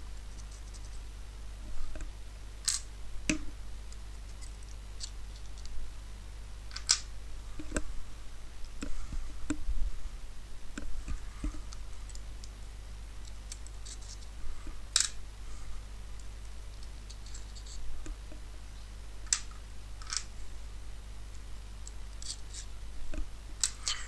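Small metal clicks and light scrapes at irregular intervals as the code discs and spacers of an Abloy Easy disc-detainer cylinder lock are handled and worked off the core, over a low steady hum.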